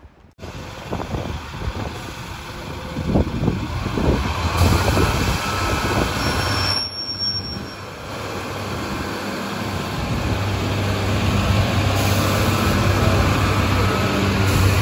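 Heavy vehicle engine running with a low rumble and knocks at first, then a steady engine drone that grows louder over the second half.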